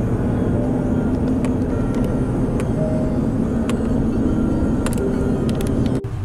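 Steady road and engine rumble of a moving car, heard from inside the cabin. It cuts off abruptly near the end.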